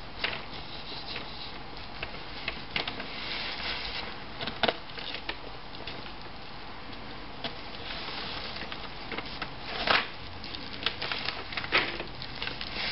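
Knife cutting and scraping through a crappie's flesh along the backbone during filleting, with irregular small clicks and crackles; the blade is not very sharp. A few louder sharp clicks or knocks stand out, about five seconds in and around ten and twelve seconds in.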